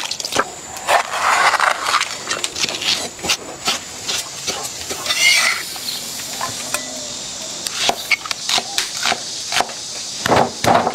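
Vegetables being rinsed by hand in water in a stainless steel bowl, then a kitchen knife chopping peppers and red onion on a wooden chopping block: sharp, irregular knocks that come in quick runs near the end.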